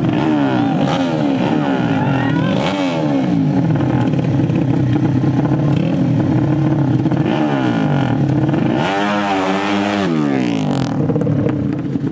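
Two 150 cc horizontal-cylinder "sleep engine" drag bike engines being revved over and over at the start line, the pitch rising and falling in quick repeated blips that overlap. About nine seconds in, one engine climbs to a much higher rev, then drops back.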